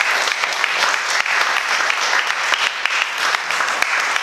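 Audience applauding, a dense, loud stretch of clapping that holds steady.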